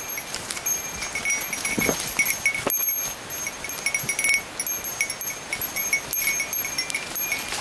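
A small metal bell, the kind of bear bell hikers carry, jingling in short irregular strikes as someone walks, with footsteps crunching through dry leaf litter.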